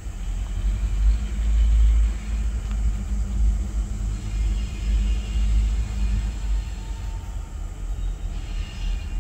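Low rumble of a distant diesel freight locomotive pulling a train toward the listener, with wind buffeting the microphone and making the level surge up and down.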